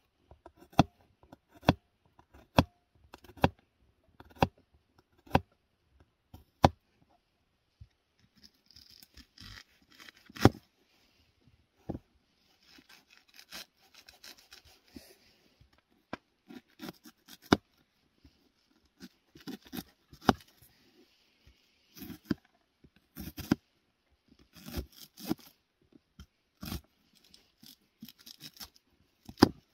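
Knife slicing garlic cloves on a small plastic cutting board: sharp knocks of the blade on the board about once a second, a stretch of softer scratchy noise in the middle, then quicker, uneven chopping.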